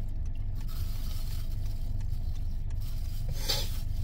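Steady low hum of a parked car's engine idling, heard from inside the cabin, with one brief hiss-like noise about three and a half seconds in.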